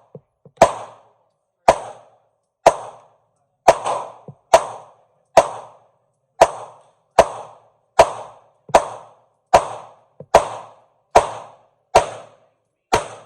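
A 9mm Glock 19X pistol fitted with a Strike Industries Mass Driver compensator firing a long string of about sixteen evenly paced shots, roughly one every 0.8 s, each shot sharp and loud with a short ringing tail.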